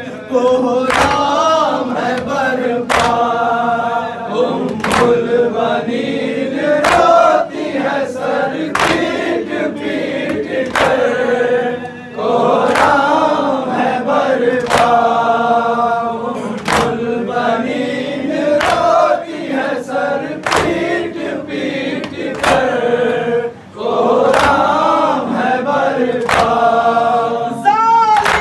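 Noha, a mourning lament, sung by a male reciter into a microphone with a group of men joining in chorus, over matam: hands striking chests in unison at a steady beat of about one stroke a second.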